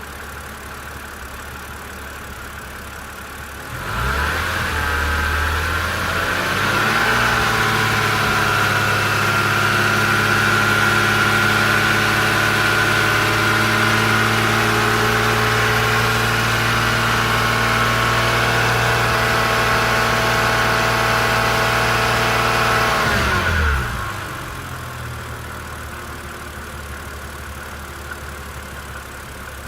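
BMW N52B30 inline-six, drive belt removed, idling, then revved up about four seconds in and held at steady higher revs with a whirring hum (surren), before dropping back to idle near the end, where an odd knocking is heard. With the belt off, the belt drive is ruled out; the owner wonders about the DISA intake flaps or the vacuum pump.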